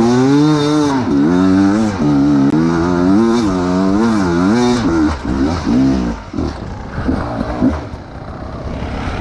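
Enduro dirt bike engine under changing throttle, its pitch rising and falling again and again while riding down a rough trail. About five seconds in it drops to a quieter, uneven off-throttle run.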